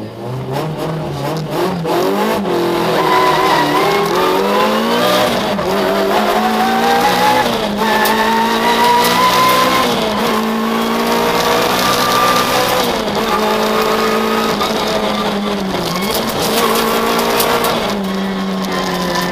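Citroën Saxo VTS rally car's four-cylinder engine, heard from inside the cabin, pulling away from the stage start and accelerating hard through the gears. Its pitch climbs with each gear and falls back at every change.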